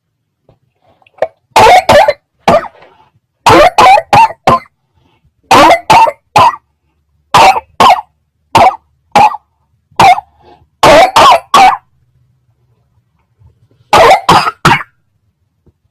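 A person coughing loudly in repeated fits: clusters of two to four coughs every second or two, then a pause of about two seconds before a last fit of three coughs near the end.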